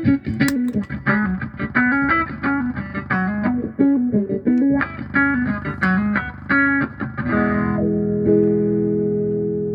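Electric guitar played through a Vox 846 hand-wired wah pedal: a run of quick picked single notes, then a chord struck about seven seconds in and left ringing.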